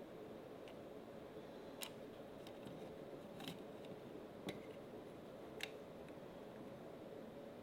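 Sparse light clicks of a 3D-printed plastic print-in-place armadillo's jointed plates being moved by hand, about four clear clicks roughly a second apart, over a faint steady hum.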